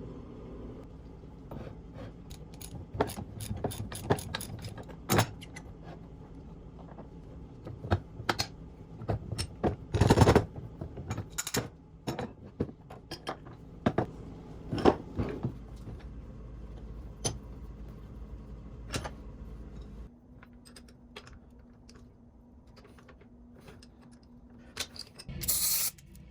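Irregular metallic clinks, knocks and clatter from an old cast-iron pipe vise being handled, with a louder burst of knocking near the middle. A steady low hum sits beneath and stops about two-thirds through.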